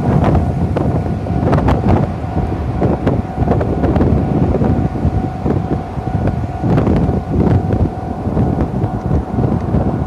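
Wind buffeting the microphone: a heavy, uneven low rumble that swells and dips with the gusts. A faint steady tone hums underneath throughout.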